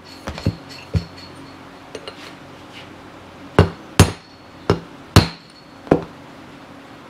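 Hammer tapping a wheel bearing into a motorcycle front wheel hub: sharp metallic taps with a short ring after each, a few in the first second, then a gap, then five harder blows.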